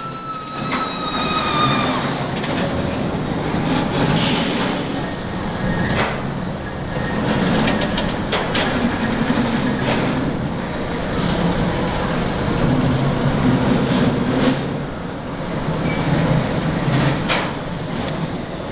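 Steel roller coaster cars rumbling along the track, swelling and fading as they pass, with scattered clacks and clatters. A high falling squeal sounds in the first two seconds.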